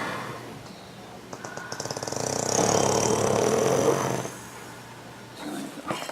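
A sleeping horse making one long, rapid rattling flutter that starts about a second in, builds, and stops abruptly about three seconds later.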